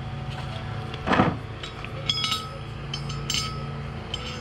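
Metal-on-metal clinks and taps with a ringing tone as steel wheel studs are worked into a portal hub, a few strikes from about two seconds in, after a brief louder scrape about a second in. A steady hum runs underneath.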